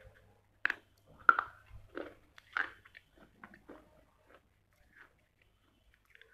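A person biting and chewing a baked clay diya filled with clay paste, close to the microphone: four sharp, crisp crunches in the first few seconds, then quieter crunching as the pieces are chewed.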